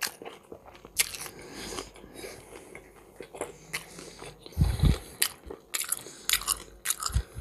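Close-miked eating sounds: chewing, smacking and soft crunches while hot-smoked perch is picked apart by hand and eaten. Scattered small clicks throughout, with a louder low thump about four and a half seconds in and another near the end.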